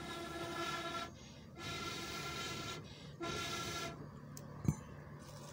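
Three blows through a long blowpipe into a wood fire to fan the flames, each a rush of air carrying a hollow, horn-like tone, the third shorter than the others. A single sharp knock follows about four and a half seconds in.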